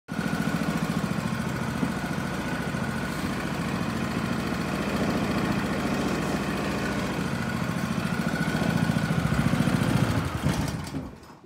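Small single-cylinder GX200-type clone engine of a Twister-style longtail surface-drive boat motor, running steadily. Near the end it dies away and stops.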